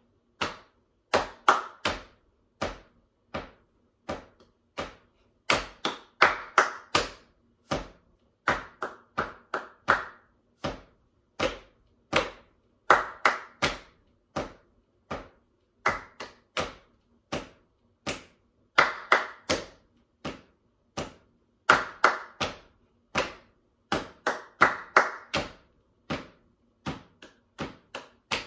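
Hand claps and taps beating out short rhythm patterns, one after another: the rhythms of spoken ingredient names clapped without the words, as a call-and-response rhythm exercise. Louder, brighter claps are mixed with softer taps.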